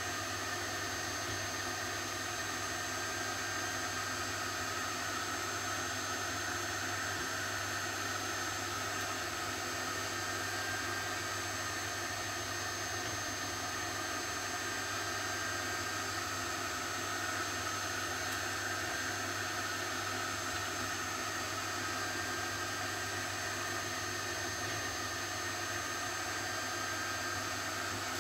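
Steady background hiss with a constant low hum and a few fixed whining tones. It stays unchanged throughout.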